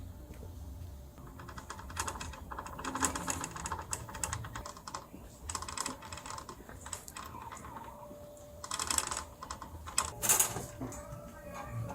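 Bursts of rapid light clicks and taps, several clusters in a row, the loudest a little before the end.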